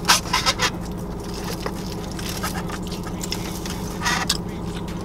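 Chicken wings being bitten into and chewed, with short wet clicks and scrapes, a cluster in the first second and another about four seconds in, over the steady low hum of the car.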